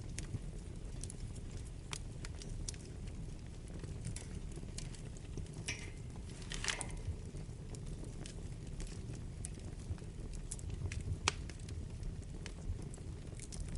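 Wood fire burning in a fireplace: a steady low rumble of the flames with scattered sharp crackles and pops from the burning logs. About six to seven seconds in there is a brief, louder hiss.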